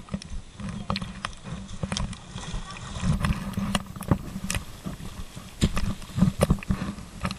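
Bare feet slapping and splashing on a wet floating water mat, with irregular knocks over a low rumble of water moving under the mat. The loudest splashing steps come a little past halfway.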